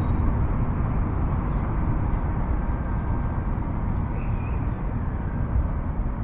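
WLtoys V922 micro RC helicopter in flight, its small electric motors and rotors giving a faint steady whine over a steady low background rumble.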